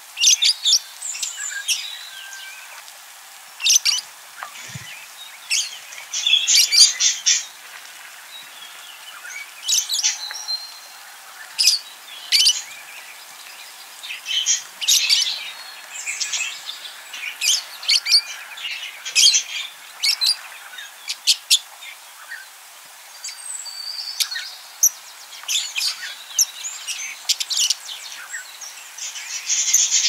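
Budgerigars chirping and chattering: short, irregular bursts of high twittering calls, with brief pauses between them.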